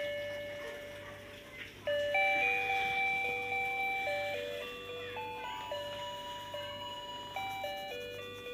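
Simple electronic tune of plain, bell-like single notes stepping up and down in pitch, each note fading after it starts.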